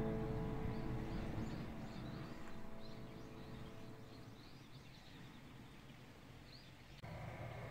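Soft background music fading out over the first few seconds, leaving faint outdoor ambience with small birds chirping in short repeated notes. About seven seconds in, a louder steady outdoor noise starts abruptly.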